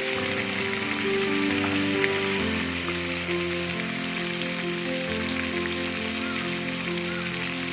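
Pieces of small hilsa sizzling steadily as they fry in hot oil in a wok, with a background music melody of held notes over it.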